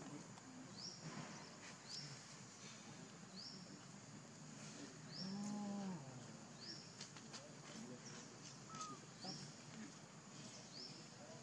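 A single short animal call, rising then falling in pitch, about halfway through. Under it, a faint high chirp repeats about once a second.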